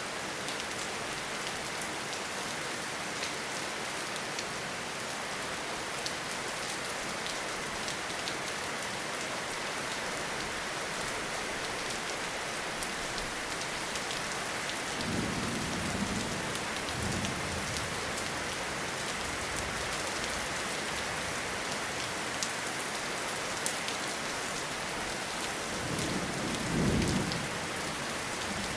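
Steady heavy rain falling in a forest, with many sharp drop ticks. Two short low rumbles of thunder come through, one about halfway and one near the end.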